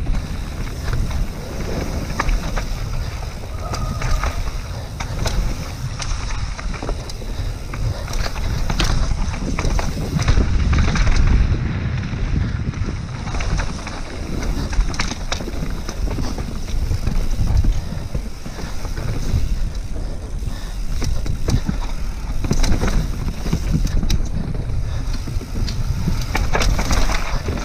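Mountain bike ridden down a dirt downhill trail: a steady rumble of tyres and wind on the microphone, with frequent clatters and knocks from the bike over rough ground.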